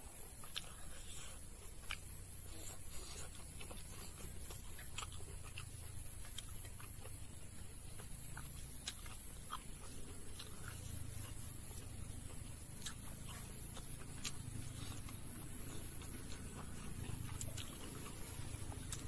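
Close-up eating sounds of someone eating rice by hand: chewing and lip-smacking, with scattered soft clicks over a low steady rumble.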